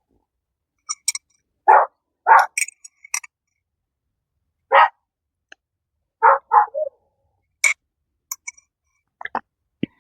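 A dog barking: several short single barks spread over a few seconds, with small sharp clicks in between.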